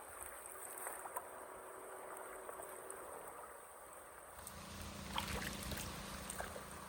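Floodwater running into a street drain, with a few faint knocks; a low steady hum joins about four and a half seconds in.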